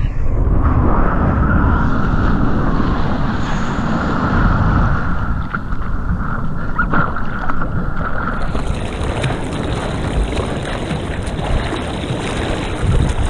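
Seawater sloshing and splashing around a bodyboard right at the microphone, with wind buffeting it. The sound is dull and muffled for the first several seconds, then opens up brighter from about eight seconds in.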